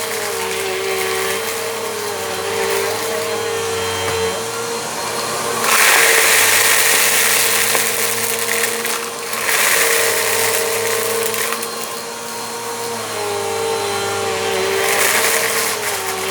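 Bissell Compact vacuum cleaner running on a rug: a steady motor hum whose pitch wavers as the cleaner is pushed back and forth. Three times the sound swells into a loud, hissing, crunchy rush as the passes pick up grit from the rug.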